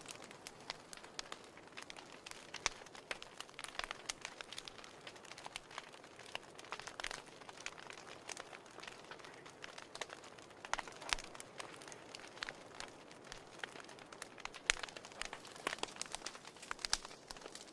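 Wood fire burning in a fireplace, crackling: irregular sharp pops and snaps, several a second, over a soft steady hiss.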